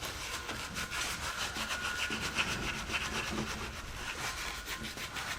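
Paper towel rubbed quickly back and forth against the combustion chambers and valve seats of a Jaguar 4.2 V8 cylinder head, a steady rhythmic scrubbing that wipes off loose carbon deposits.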